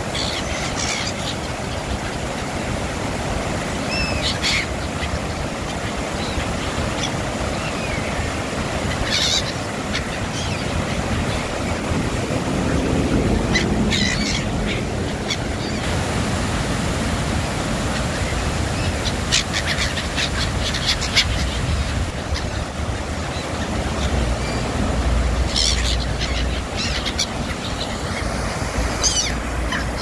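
A flock of black-headed gulls calling in short bursts, a few calls at a time at irregular intervals, over the steady rush of river water pouring down a low weir.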